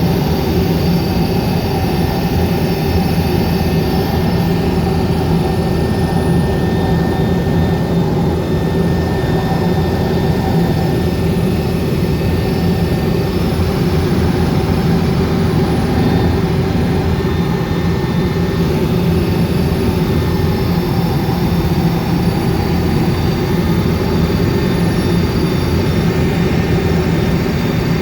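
Helicopter in flight, heard from on board: a loud, steady drone of engine and rotor noise with a thin steady whine above it.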